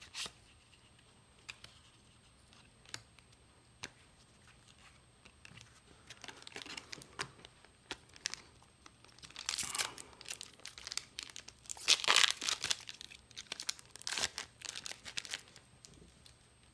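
A foil Final Fantasy TCG booster pack wrapper being torn open and crinkled. A few light ticks come first, and the loudest tearing and crinkling comes in spells in the second half.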